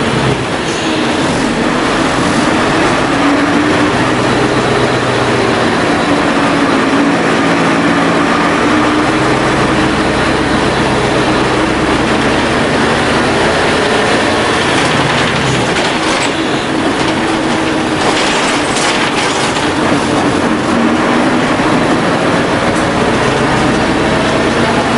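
Cabin running sound of a 1997 Isuzu KC-LV380N city bus: the Isuzu diesel engine running loud, its pitch rising and falling several times as the bus speeds up and slows, over steady road noise. A few short rattles and clicks come through between about fifteen and twenty seconds in.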